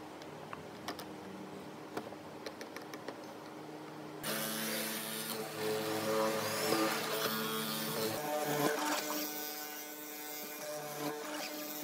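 Benchtop hollow-chisel mortiser's electric motor running with a steady hum and a few light clicks, then about four seconds in the square chisel and auger bite into a pine block, louder and rougher as they bore a square mortise.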